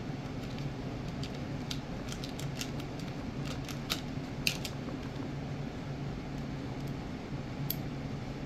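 Light clicks and ticks of small parts being handled in a clear plastic parts box: a dozen or so over the first five seconds, the two loudest about four seconds in, and one more near the end. A steady low hum runs underneath.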